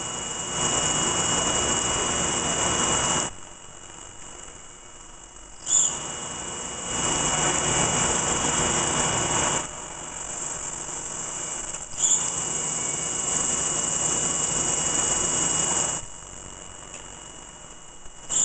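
F.P.T. Ronin machining center drilling dowel holes in hard material with a through-coolant drill on a multi-axis head, run at half speed and feed. It goes in repeating cycles of about six seconds, three times: a short sharp sound, then a few seconds of loud hissing coolant spray and cutting, then a quieter spell between holes. A thin steady high whine runs throughout.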